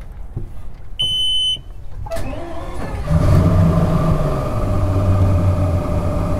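Bass boat's outboard motor being started: the key-on warning horn beeps once for about half a second, then the engine turns over and starts about two seconds in and runs at a steady idle.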